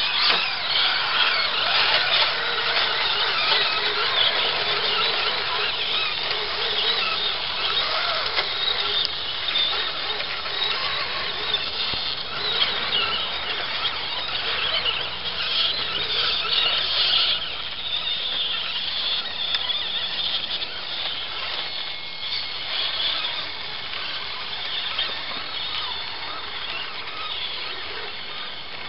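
Radio-controlled scale 4x4 truck's electric motor and gears whining continuously at a high pitch as its tyres churn through wet mud and water.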